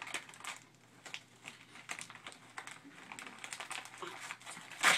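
Paper rustling and crinkling as a small child handles and unwraps a gift, in irregular short crackles, with one sharp, much louder crackle of paper near the end.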